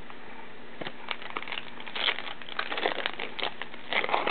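A 2009 Upper Deck Goodwin Champions trading card pack's wrapper crinkling and tearing as it is ripped open by hand, in a string of sharp crackles that start about a second in and are loudest about two seconds in and near the end.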